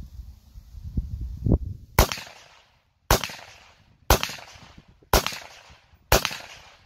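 Semi-automatic M1A rifle fired five times in steady succession, about one shot a second, each report trailing off in an echo before the next. The shots follow a low rumble.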